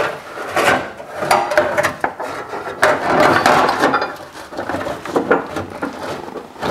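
Irregular metal clunks and scraping as a tow-bar crossmember is jiggled up and down under the car to line up its bolt hole, while a bolt is started by hand into a thread that goes in stiffly because it is painted inside.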